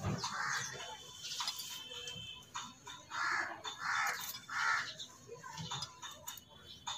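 A crow cawing three times in a row about halfway through, with light clicks and clinks of metal tools against the iron frame and steel plate.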